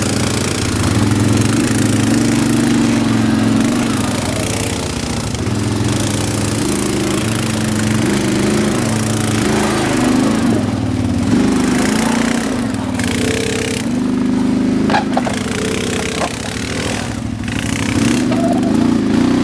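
ATV engine running as the quad climbs a rough dirt trail, its pitch rising and falling with the throttle, with a few knocks and clatter from the machine over rocks.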